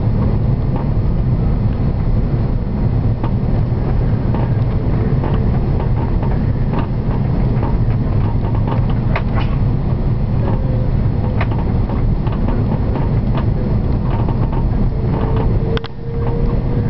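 Airbus A330 cabin noise on final approach, heard from a window seat over the wing: a steady low rumble of the engines and rushing air, with scattered faint clicks and rattles. A faint steady hum joins near the end.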